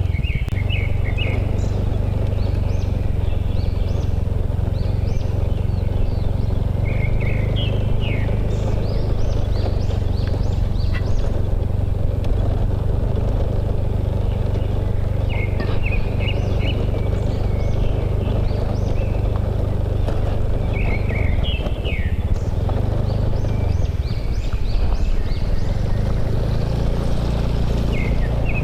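Small motorbike engine running steadily at riding speed, with wind and road noise, easing off briefly twice about three-quarters of the way through. Short clusters of bird chirps sound over it several times.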